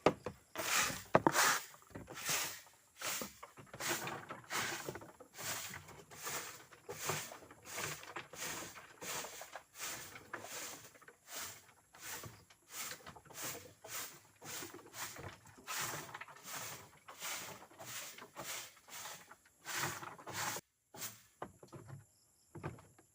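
Broom sweeping a goat pen floor: a long run of brisk brushing strokes, about two a second, that stop near the end.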